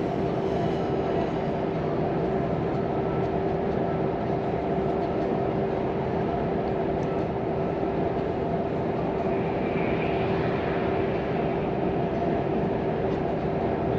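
Volvo FM 420 truck's 13-litre six-cylinder diesel running at a steady speed, heard from inside the cab: a constant drone of engine and tyre noise with a steady hum.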